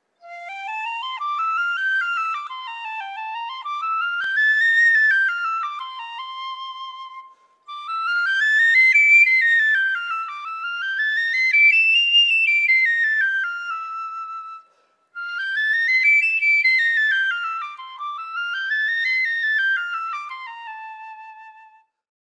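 A flute-like wind tone playing quick note-by-note scales that climb to high notes and step back down, twice in each of three phrases with short breaks between them.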